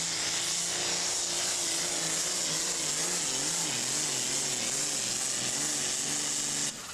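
Turbocharged diesel engine of a super farm pulling tractor running flat out under load, with a dense hiss over the engine note. Its pitch wavers up and down through the middle of the pull, and the sound cuts off suddenly near the end.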